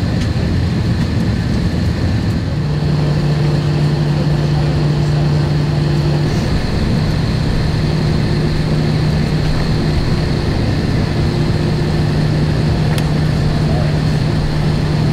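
Airliner cabin noise before take-off: a steady rush of engine and ventilation noise, with a low hum that comes in about two and a half seconds in and holds.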